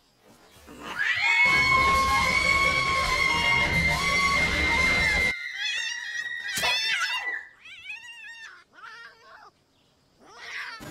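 A loud blast of music-like sound with a held high tone and heavy bass starts about a second in and cuts off suddenly after about four seconds. A cat then screeches in several wavering cries as it is stabbed with garden shears.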